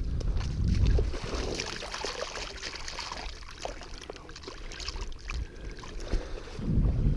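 Shallow water splashing and sloshing, with wind rumbling on the microphone at the start and again near the end.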